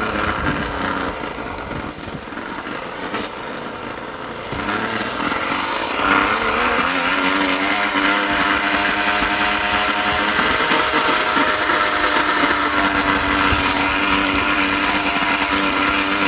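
Small plastic bottle flapping against a bicycle wheel's spokes as the bike rolls, making a motorcycle-like buzz. About six seconds in it grows louder and settles to a steady pitch.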